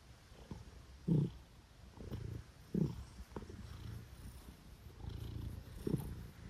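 Domestic cat purring close up while its head and cheek are stroked: a low rumble with louder swells every second or two.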